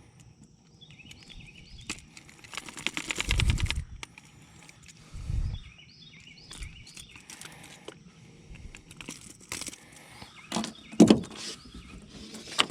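Handling noise as a largemouth bass is held in a fish gripper and the treble-hooked lure is worked free: a rapid rattle about three seconds in, a couple of low thumps, and scattered clicks. Faint bird chirps sound twice in the background.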